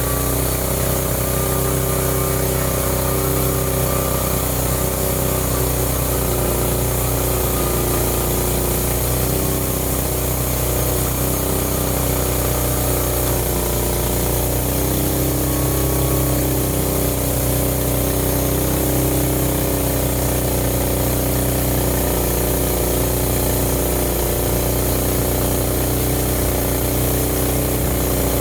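Homemade band sawmill running, its engine holding a steady note that wavers slightly in pitch as the band blade cuts through a log.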